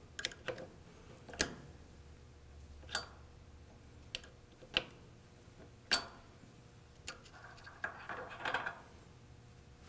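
Light metallic clicks and taps, scattered irregularly, as a flat-blade screwdriver and small steel washers knock against the washer's lower transmission shaft and pulley hub, with a short scrape of metal on metal near the end.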